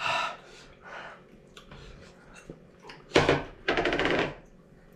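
Close-up mouth sounds of someone licking rice and curry off their fingers after eating by hand: short wet sucks and smacks, with two louder bursts a little after three seconds in.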